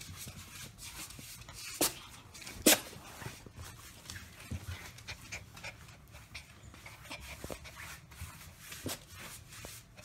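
Small dog panting, with a scatter of sharp clicks and taps, the two loudest about two and three seconds in.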